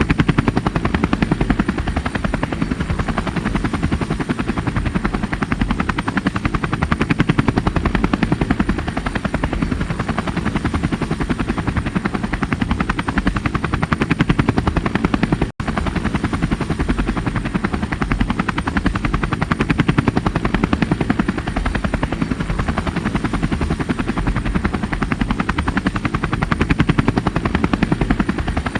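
Helicopter rotor noise: a steady, rapid chop of the blades over engine and turbine noise. It cuts out for an instant about halfway through.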